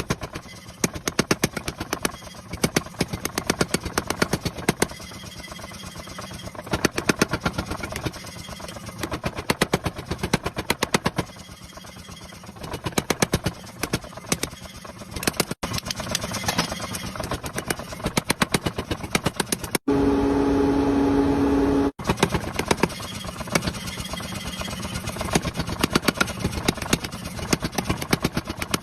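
Blacksmith forging a red-hot steel knife blank: rapid, evenly spaced hammer blows on metal. A steady hum about twenty seconds in cuts off sharply two seconds later.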